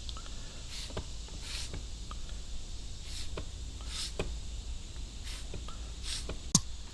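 Broadhead blade being stropped: a series of short, uneven swishing strokes, roughly one or two a second, as the edge is drawn back and forth across the strop to finish it after filing.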